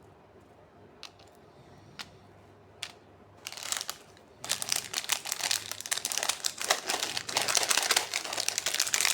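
Plastic candy wrapper crinkling as it is handled and unwrapped. A few separate sharp clicks come first, then a dense crinkling starts about three and a half seconds in and turns loud and continuous a second later.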